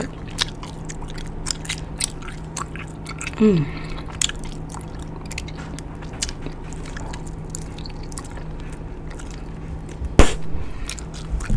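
Bubble gum being chewed and smacked close to the microphone: scattered wet mouth clicks. A short falling vocal sound comes about three and a half seconds in, and one louder snap near the end.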